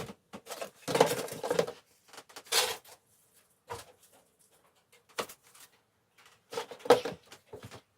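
Irregular rustling and knocks of potting work by hand: plant pots and soil being handled, with louder knocks about a second in, two and a half seconds in, and near the end.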